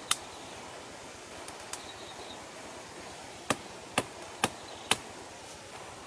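Chopping strikes with a blade: one sharp strike, then a run of four about half a second apart a few seconds later, over a steady background hiss.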